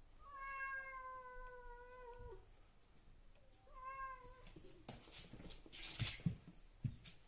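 British Shorthair cat giving a long, slightly falling yowl, then a shorter second meow. The two cats then grapple, with scuffling noise and a few thumps on the wooden floor near the end.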